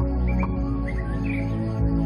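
Soft background music of sustained chords, with a few short, high bird chirps over it.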